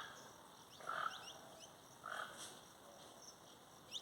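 Toucan calling: three faint short calls about a second apart, a sound the listener likens to a pig.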